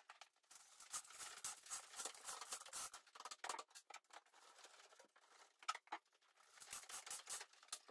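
Faint, irregular rustling and scraping with light ticks and taps: plastic PEX radiant-heat tubing being handled, stretched and fed through drilled holes in wooden floor joists.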